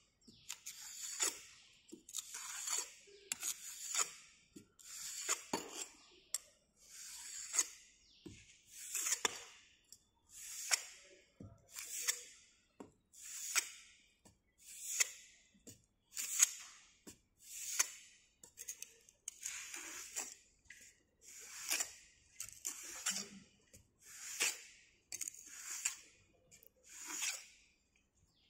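Moulding trowel scraping over packed moulding sand in a series of short strokes, about one a second, smoothing and finishing the mould surface.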